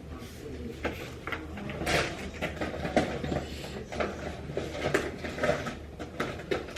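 Scattered light knocks and clicks, like objects being handled, over a low steady hum.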